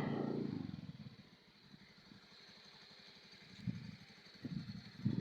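A motorcycle engine runs close by and fades away about a second in. Faint low knocks follow near the end.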